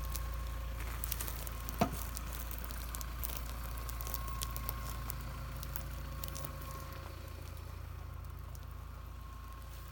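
Off-road vehicle engine running with a steady low rumble, with scattered crackles and clicks over it and one sharp crack about two seconds in.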